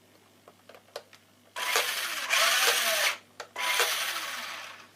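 Electric motor and gearbox of a Tamiya RC car spinning up twice under throttle, each burst over a second long, the second tailing off as it slows. A few light clicks come before it.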